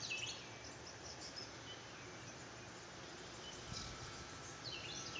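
Small birds chirping faintly: quick runs of short, falling high notes at the start and again near the end, over a steady outdoor hiss.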